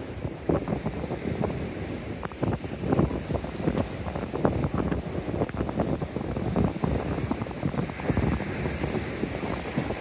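Surf washing and breaking on a sand and pebble shore, with wind buffeting the microphone in irregular gusts that crackle and rumble over it.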